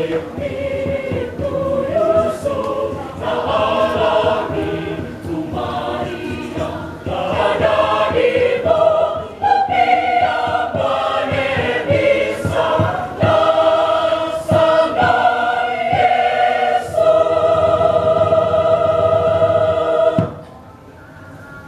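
Mixed-voice church choir, women and men, singing in harmony. It ends on a long held chord that cuts off about twenty seconds in.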